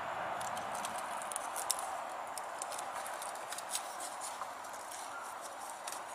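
Light ticks and taps from hands working tape and a small metal weight onto a wire brush wheel on a balancing stand, scattered irregularly over a steady background hiss.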